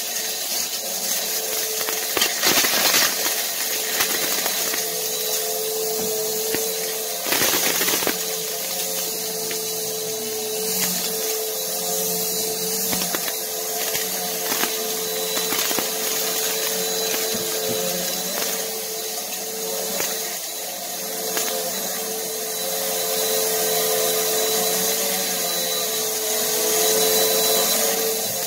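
Upright bagless vacuum cleaner running over carpet, its motor holding a steady hum while dried beans rattle and crunch as they are sucked up. Two louder spells of clattering come about three seconds in and near eight seconds.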